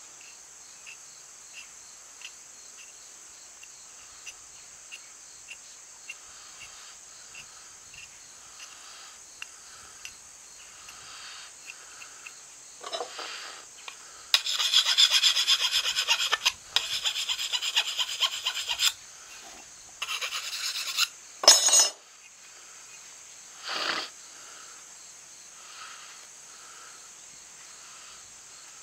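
Steel mill file drawn by hand across the edge of a forged tomahawk head, putting the final convex edge on before heat treating. For the first dozen seconds there are only faint, light strokes. Then come several seconds of loud, fast rasping strokes, and one last stroke a couple of seconds later.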